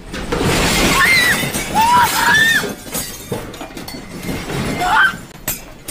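A kitchen shaking in a strong earthquake: a continuous crashing and rattling of dishes, glass and household objects. It is loudest in the first half, with another surge about five seconds in.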